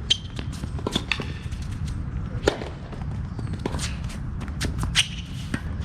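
Tennis rally: sharp pops of racket strings striking the ball, the strongest about two and a half seconds apart, with lighter ball bounces and footsteps on the court between them, over a steady low background rumble.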